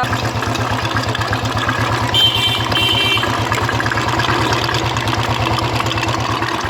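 Royal Enfield 350 Electra's single-cylinder pushrod engine idling with a steady, even beat and no tappet tapping: oil is flowing again through the cleared oil hole to the valve gear. A brief high tone sounds a little over two seconds in.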